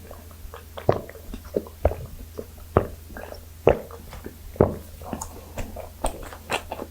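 Chewing of soft, spongy butter-baked rice cake (gijeong-tteok): wet, sticky mouth sounds with a sharper smack about once a second.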